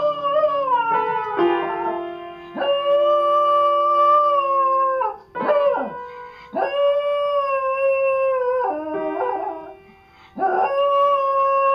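A dog howling in several long, drawn-out notes, each held steady and then sliding down in pitch at its end, with short breaks between them. Its paws press the keys of an upright piano, so piano notes sound at the start of and between the howls.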